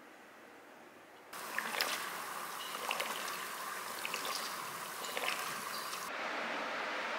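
Water trickling and splashing over a photographic print in a darkroom processing tray, starting suddenly about a second in, with small drips and splashes.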